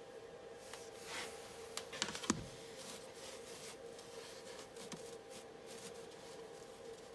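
Faint handling and rubbing sounds at a workbench, with a quick cluster of sharp knocks about two seconds in, over a steady hum.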